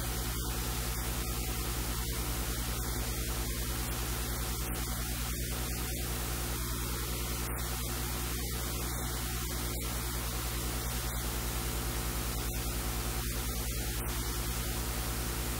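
Steady hiss of static with a low electrical hum under it, unchanging throughout; no other sound stands out.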